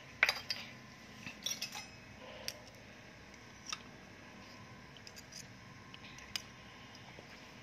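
Small metal spoons clinking and scraping against a miniature steel bowl as curry is spooned into it: a handful of light, sharp clicks spread over otherwise quiet seconds.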